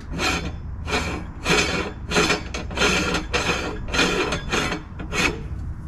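Threaded metal retaining ring being hand-screwed onto the head of a #22 meat grinder: a run of short rasping scrapes about twice a second as the threads turn, stopping near the end.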